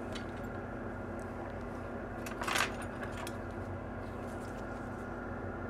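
Steady low hum of workbench equipment, with one short hiss about two and a half seconds in.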